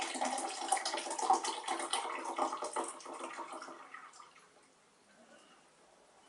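Pink lemonade poured from a 23 fl oz can into a clear skull-shaped mug: a steady splashing, glugging stream that tapers off and stops about four seconds in as the can empties.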